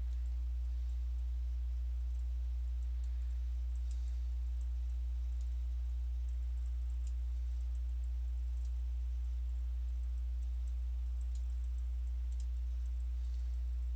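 Steady low electrical hum with overtones, with a few faint, scattered clicks every second or two.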